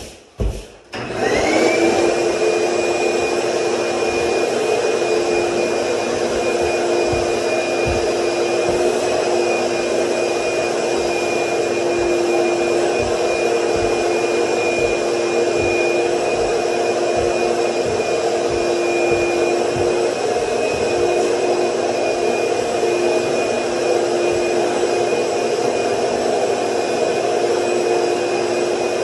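Orange wet/dry shop vacuum switched on about a second in, its motor spinning up to a steady whine, then running while its hose sucks up debris from a subfloor, with scattered small knocks as pieces go up the hose.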